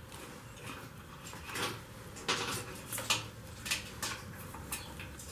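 Light handling noise of wires and small metal parts on a motorcycle: scattered clicks, taps and faint metallic clinks with some rustling, a handful of sharper ones through the middle.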